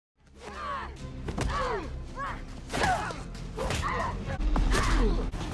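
Hand-to-hand fight sounds: a rapid string of short effort shouts and grunts, with thuds and swishes of blows, over background music.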